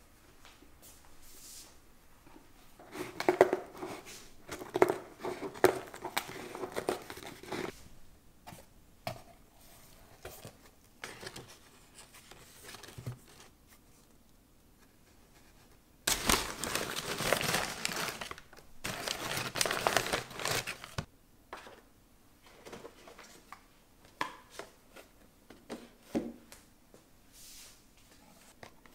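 Crumpled brown packing paper crinkling and rustling as a parcel is unpacked by hand, in clusters, with two longer, louder spells of crumpling a little past the middle. Small knocks of cardboard boxes being handled in between.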